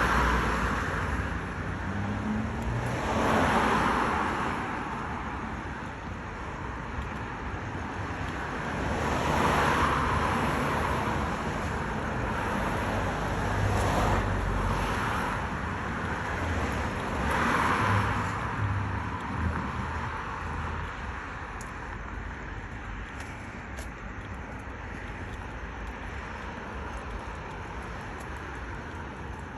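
Road traffic: cars passing one after another, with about four swells of tyre and engine noise that rise and fade. The street grows quieter and steadier in the last third.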